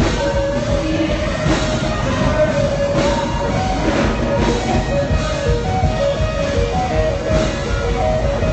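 Live worship band playing an instrumental passage: electric guitar with drum kit and held keyboard-like notes, steady and loud.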